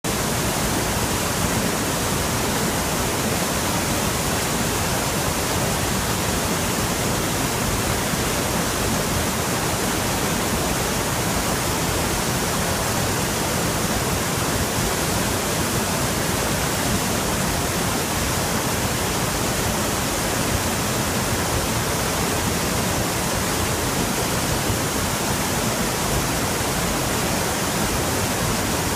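Waterfall pouring over rock: a steady, loud rush of falling water that never lets up.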